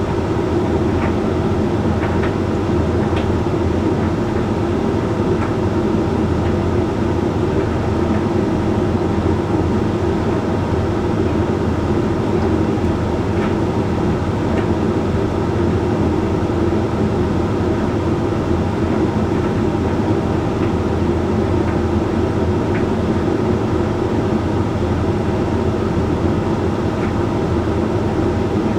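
Hoover Link X Care HLX C10DRGR condenser tumble dryer running steadily mid-cycle: an even motor-and-fan hum with the drum turning, and a few faint ticks now and then.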